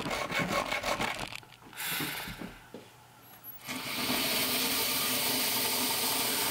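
Hand hacksaw with a worn blade cutting through a stainless steel strip clamped in a vise, in quick regular strokes for about the first second and a half. After a short lull, from a little under four seconds in, a steady even sound of a narrow finishing belt running at slow speed on a belt grinder.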